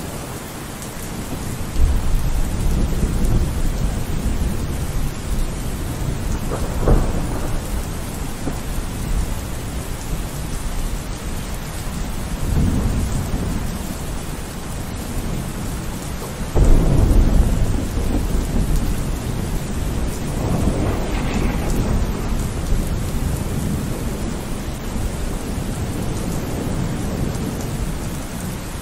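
Tropical cyclone wind gusting hard with rain, the wind rumbling on the microphone. Strong gusts hit suddenly about two seconds in and again a little past halfway.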